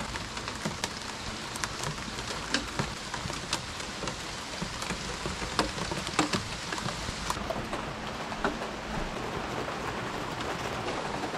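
Steady rain falling on a wooden deck and the trees around it, an even hiss with many scattered sharp taps of nearby drops.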